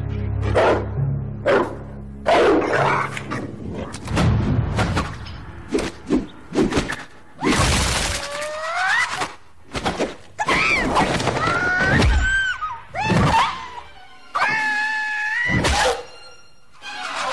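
Film soundtrack: music under a run of sharp thuds and knocks, with high, wavering squeals in the second half.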